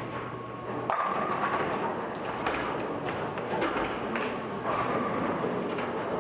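Bowling alley din: a bowling ball crashes into the pins about a second in, followed by scattered knocks and clatter of balls and pins across the lanes.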